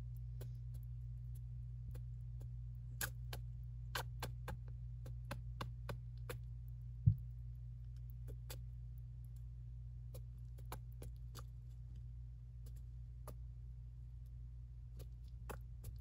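A Syrian hamster cracking and chewing seeds from its food mix: a string of short, sharp, irregular clicks, thickest a few seconds in and then sparser. One dull thump about seven seconds in, over a steady low hum.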